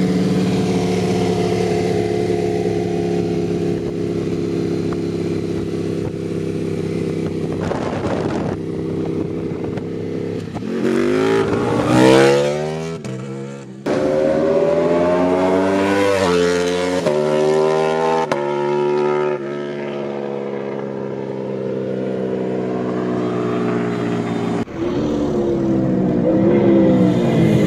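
Exhaust notes of two superbikes, a Ducati V4 and a BMW S1000RR. They run steadily at speed at first, then a sharp rev comes about twelve seconds in. After that a bike accelerates hard up through several gears, its pitch climbing and dropping back at each shift, settles into a steadier run, and revs up again near the end.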